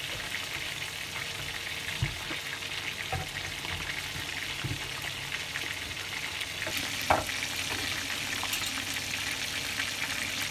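Chicken pieces frying in hot oil in a pan: a steady sizzle and crackle, with a few soft knocks, the loudest about seven seconds in.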